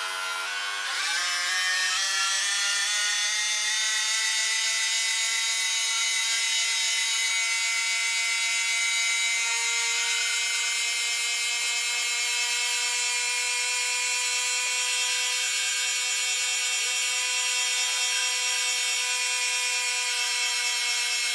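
Belt grinder running up to speed about a second in, its pitch climbing and then holding a steady high-pitched whine.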